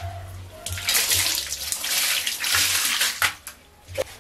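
Water pouring and splashing over a bicycle frame and onto a tiled floor as the frame is washed by hand, for about two and a half seconds, then stopping, with a short tap near the end.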